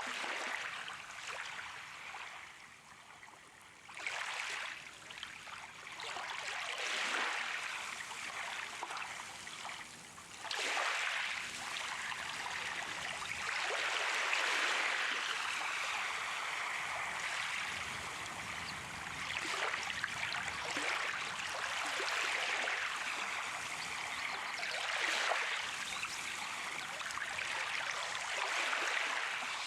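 Sea waves washing in and drawing back, a steady rush of water that swells every few seconds, with a quieter lull near the start.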